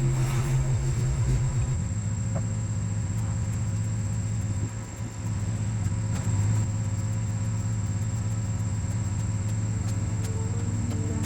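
Small petrol engine running steadily at a constant speed, with a brief dip in level about five seconds in.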